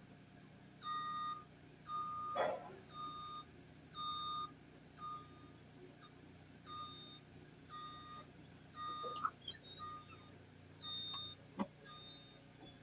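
Repeated electronic beeping, roughly one short steady beep a second with a few irregular gaps. A few sharp clicks or knocks fall between the beeps, the clearest about two and a half seconds in and near the end.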